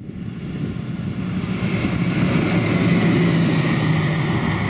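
Electric locomotive, a Siemens Vectron running light, passing close by: rumble of wheels on the rails with a low hum and a high whine that sinks slightly in pitch. It grows louder to a peak about three seconds in.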